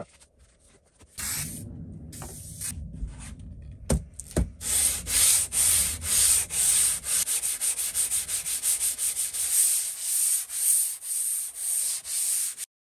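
Cast-iron sole of a Record No. 7 jointer plane rubbed back and forth on 120-grit sandpaper laid on glass, lapping the sole flat. The rubbing starts about a second in and, after two sharp knocks near four seconds, settles into steady strokes of about two a second, then cuts off suddenly just before the end.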